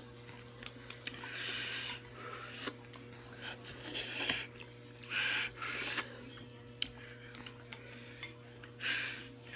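Short hissing breaths, irregular and in and out through the mouth, from people eating fiery-hot noodles, with a few light clicks between them.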